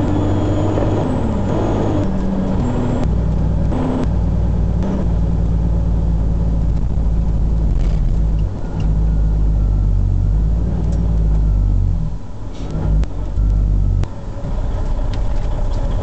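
Fire engine's diesel engine running under the cab as the truck drives slowly, with a steady low drone whose pitch steps up a few times in the first seconds and eases off briefly around twelve seconds in as it slows.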